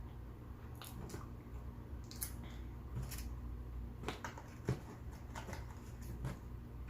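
Soft eating sounds: chewing, with scattered small clicks and rustles as the food is handled.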